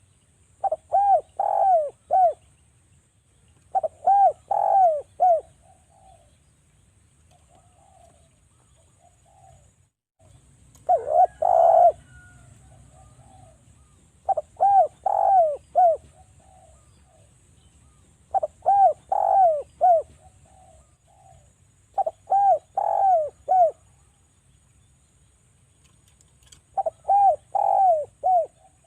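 Spotted dove (derkuku) cooing: repeated phrases of four or five quick coos, a new phrase every three to four seconds, with softer notes between them.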